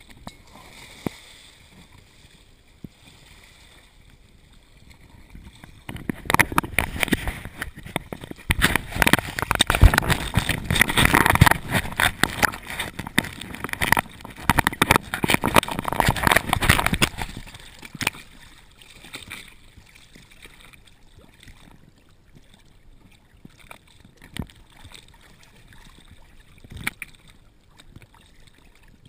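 Sea water splashing and sloshing over a camera's waterproof housing as it dips at the surface, loud and crackling for about twelve seconds from about six seconds in, then fainter lapping with a few single knocks.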